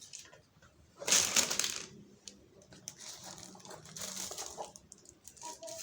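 Packaging being handled during an unboxing: a loud crinkling rustle about a second in, then softer rustling and small handling clicks.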